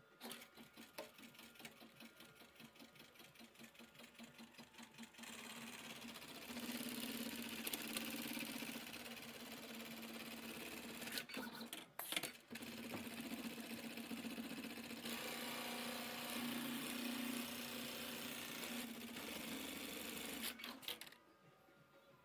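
Automatic pocket-setting template sewing machine stitching a back pocket onto jeans denim. It starts with a fast, even pulsing and gets louder and steadier about five seconds in. It dips briefly with a few clicks about halfway, then runs on and stops about a second before the end.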